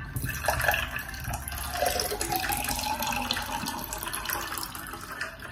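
Lemon water with ice poured from a plastic bottle into a drinking glass: a steady splashing pour.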